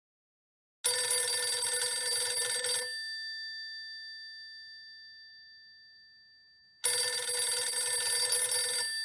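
A telephone bell ringing twice, each ring about two seconds long, with the bell's tones fading away in the pause between rings.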